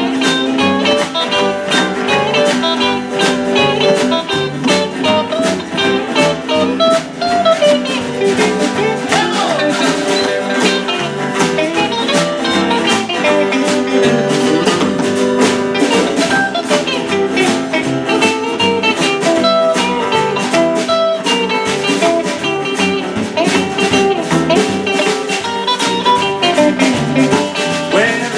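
Live band playing an instrumental passage with no singing: electric and acoustic guitars over drums and upright double bass, with a steady beat.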